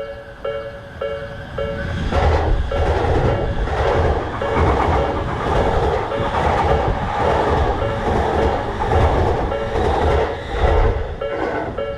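A Japanese railroad crossing's warning bell dings about twice a second. From about two seconds in a train passes, and its rumble and clattering wheels over the rail joints cover the bell. Near the end the train clears and the bell is heard alone again.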